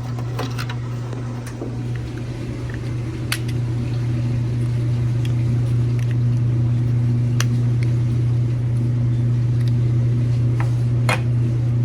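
A steady low machine hum that gets somewhat louder a few seconds in, with a handful of sharp clicks and taps from hand tools as a washer's control console is opened up.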